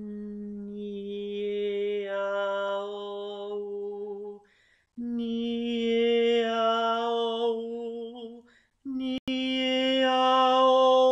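A woman's voice sings three sustained tones, each about four seconds long on one breath and each a step higher than the last. This is a resonance exercise, an 'hn' hum carried into the vowels i-e-a-o-u, all placed forward at the root of the nose where the N vibrates. A short click comes just before the third tone.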